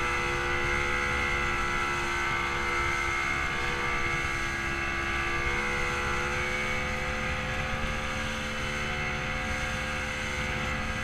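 Yamaha 50 hp outboard motor running steadily at speed, driving an inflatable boat.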